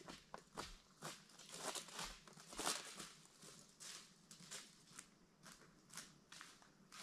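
Faint footsteps of a person walking, a steady run of short steps.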